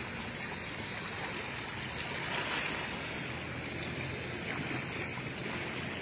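Steady rush of shallow seawater around a camera held just under the surface.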